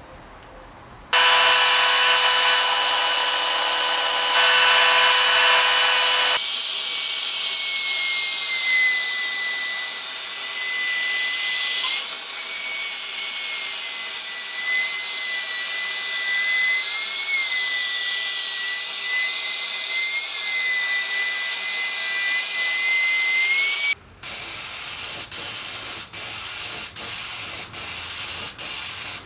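A small electric power tool whines steadily at one pitch, then a trim router runs at high speed for most of the time, its whine wavering slightly as it routs the edge of an end-grain wooden cutting board. Near the end comes the steady hiss of a spray gun applying finish, broken by short pauses.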